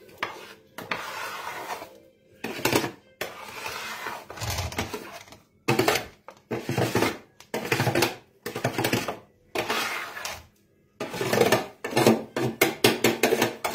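Kitchen utensils scraping and clattering against cookware in irregular strokes with short gaps, faster toward the end.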